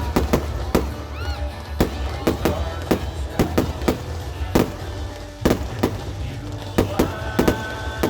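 Fireworks going off: a rapid, irregular run of sharp bangs and pops over a steady low rumble.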